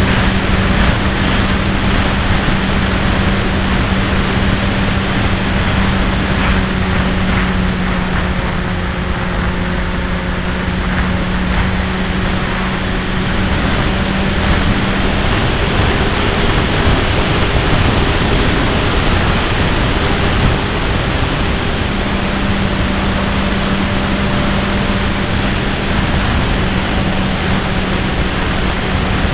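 Irvine 53 two-stroke glow engine of a Hangar 9 Pulse XT 40 model aeroplane droning in flight, heard from a wing-mounted camera under heavy wind rush. The steady engine note drops away for several seconds around the middle, then comes back.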